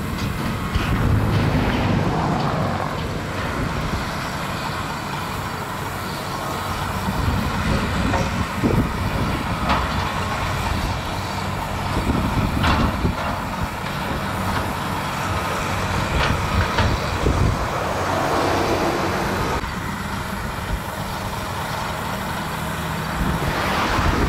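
Diesel engines of several tracked hydraulic excavators running steadily, with a few sharp metallic clanks from the work on the toppled rail cars.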